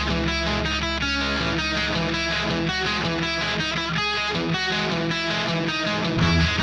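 Heavy rock music: an electric guitar picks a repeated riff of quick notes over a low sustained tone. Near the end the low end changes and the music gets louder as more of the band comes in.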